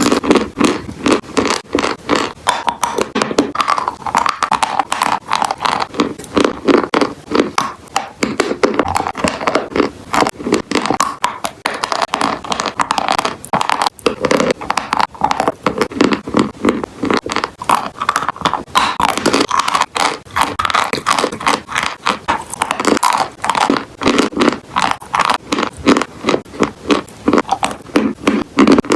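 Chalk and clay crunching and scraping without pause, several sharp crunches a second.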